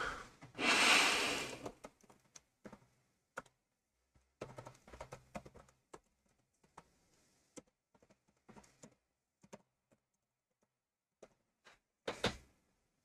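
Computer keyboard typing: irregular runs of keystroke clicks with pauses between words, and a denser burst of clicks near the end. About a second in, a loud rush of noise lasting about a second is the loudest sound.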